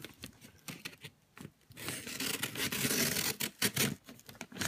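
Hands prying at a heavily taped cardboard gift box. First come scattered light taps and crinkles, then about two seconds of steady scraping and tearing as tape and cardboard rub and pull apart, with a few clicks near the end.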